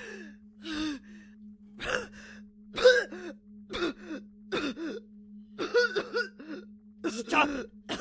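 A woman's voice gasping, choking and straining in about a dozen short bursts, over a steady low hum.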